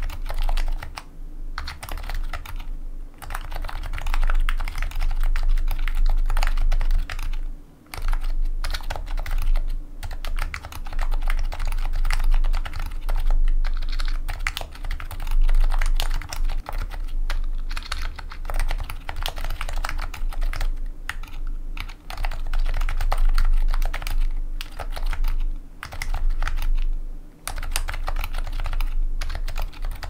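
Continuous typing on a Matrix ME custom keyboard fitted with an EC kit: electro-capacitive, Topre-style switches with 45 g BKE tactile domes under lubed sliders, an FR4 plate and a foam-damped case. The keystrokes come in a dense, uneven stream with a few brief pauses.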